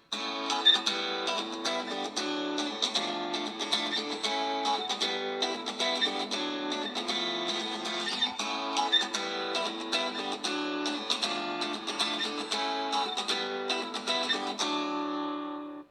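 A stock Samsung Galaxy Tab S ringtone playing: a quick plucked-string tune with rapid notes that stops abruptly at the end.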